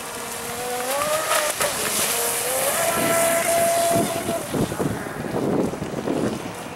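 Fast electric RC mono hull boat on a 4-cell battery running at speed: a high motor whine that rises in pitch as it accelerates, then holds steady, loudest as the boat passes close. The whine cuts off about four and a half seconds in, leaving a rushing hiss of water and spray.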